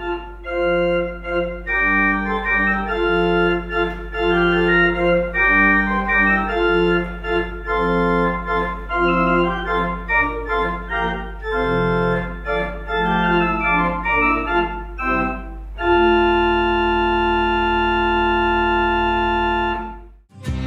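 Historic pipe organ playing a piece of moving notes over a steady low bass tone, ending on a long held chord for about four seconds that cuts off just before the end.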